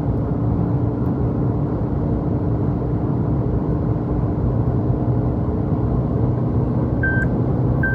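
Cabin noise inside a Suzuki Jimny at highway speed: the four-cylinder engine running hard with a steady note over road and wind noise, and no roof-rack wind roar. About seven seconds in, short high beeps start repeating a little under once a second: the speed-warning chime as the car reaches 120 km/h.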